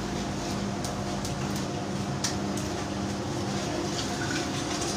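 Steady mechanical hum with an even hiss of noise, and a few faint sharp clicks in the first half.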